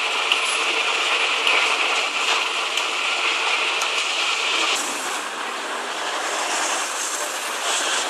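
Steady city street noise, a hiss of traffic with a few faint clicks. It changes abruptly about five seconds in, losing its upper hiss.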